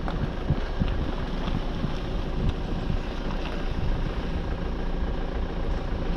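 Steady low engine rumble of a moving vehicle, with wind noise over it.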